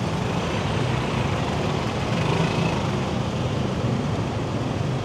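Motorbike ridden through city traffic, its engine running steadily under a continuous rush of road and traffic noise.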